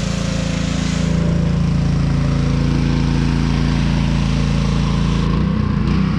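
Pressure washer's engine running steadily, with a hiss over the engine note.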